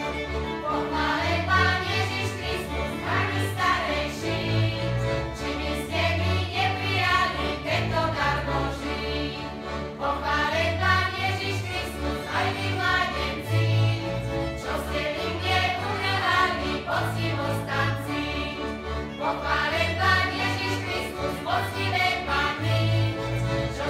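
A group singing a Slovak folk song together, accompanied by a folk string band with fiddle and double bass.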